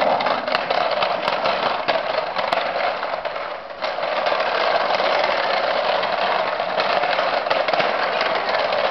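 Small hard castor wheels and plastic crate of a dolly trolley rattling and rumbling steadily over rough concrete as it is dragged along, with a short lull a little before four seconds in.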